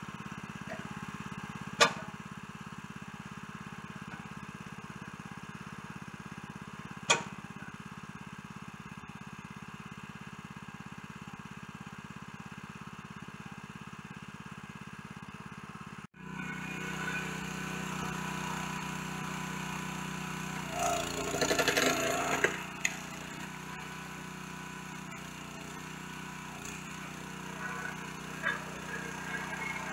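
A log splitter's small gasoline engine running steadily, with two sharp cracks of splitting wood in the first seven seconds. About halfway through the engine sound jumps louder, and a little later comes a stretch of crackling, splitting wood lasting about two seconds.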